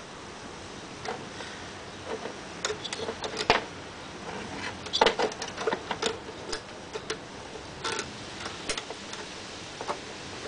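Irregular clicks and clinks of small metal hardware being handled, such as washers, a wing nut and a bolt, with several quick taps bunched together in the middle.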